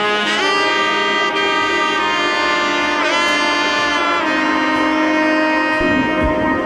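Background music: a lead melody of long held notes that slide up into pitch, with a drum beat coming in near the end.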